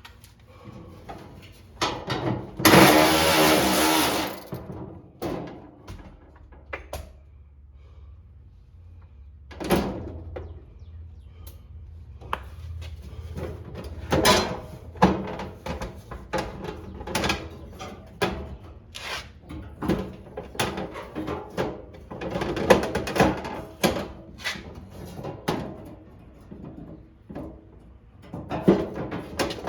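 Clicks, knocks and rattles of parts and hand tools being handled, with a loud rushing noise lasting about a second and a half near the start.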